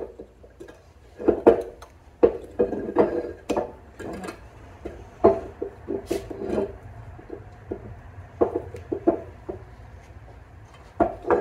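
Hand tool prying and scraping at a stubborn oil seal in a Simplicity 725 bevel gearbox's metal housing, with the housing shifted about on the bench: irregular metallic clicks, knocks and scrapes. The seal is not coming out.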